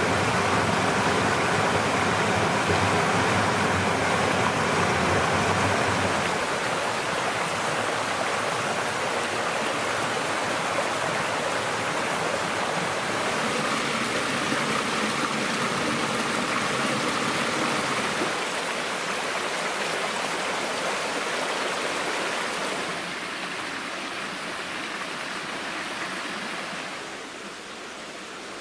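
Woodland stream running over small rocky cascades: a steady rush of water that drops in level a few times and is fainter near the end.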